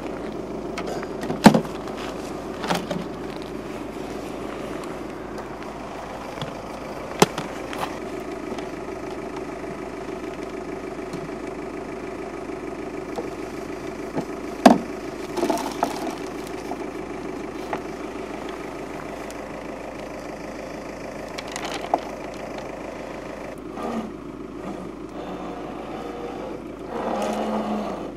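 A steady mechanical hum throughout, broken by sharp clicks and knocks as a Waverunner bait boat and its rig are handled; a louder short rumble about a second before the end.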